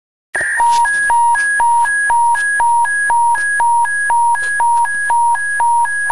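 Emergency-broadcast attention tone: a loud electronic alert alternating between a lower and a higher pitch, about four tones a second (two low-high cycles a second). It starts abruptly about a third of a second in.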